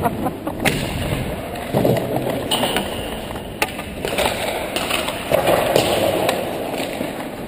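Ice hockey skates scraping and carving across rink ice, with a couple of sharp clacks, the first about a second in.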